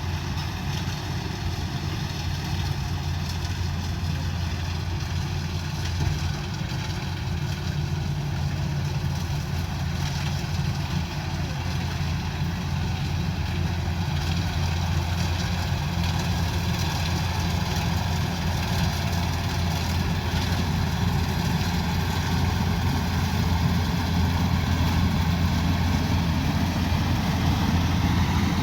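Combine harvester engine running steadily with a deep drone, slowly growing louder toward the end.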